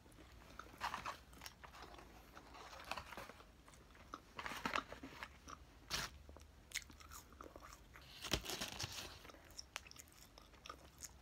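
A person crunching and chewing fast food close to the microphone, with crunchy bites coming in clusters every second or two.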